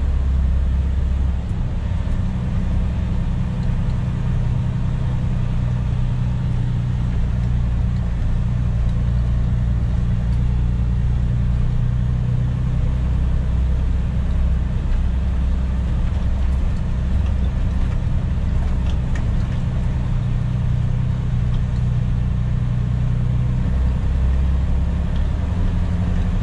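Cab of a Freightliner 122SD dump truck on the move: the diesel engine drones steadily, with road noise, heard from inside the cab.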